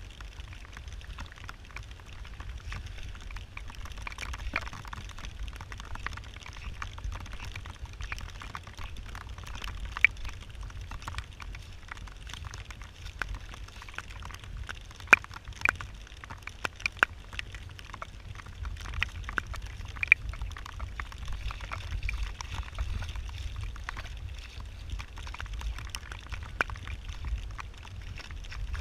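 Heavy rain falling on a flooded street: a steady hiss of rain with a low rumble underneath and many sharp taps of drops landing close to the microphone, the strongest taps around the middle.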